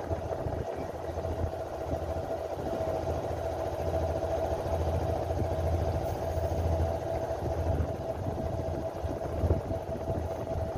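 A boat's engine idling steadily, a constant hum with one held tone over a low rumble.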